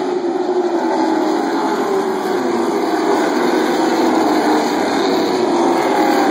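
A pack of stock cars racing on a short oval track, with several engines running together at once. Their overlapping pitches slowly rise and fall as the cars come around the turn.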